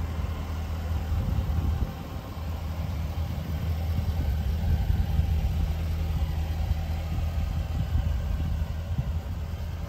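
Jaguar F-Type SVR's supercharged 5.0-litre V8 idling steadily, a low, even exhaust note.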